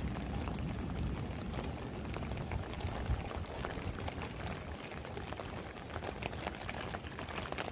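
Heavy rain falling steadily, with many separate drop hits ticking through a dense wash and a low rumble beneath.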